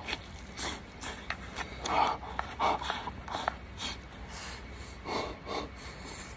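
A person eating: short breathy puffs and mouth noises at irregular intervals, louder about two seconds in and again after five seconds.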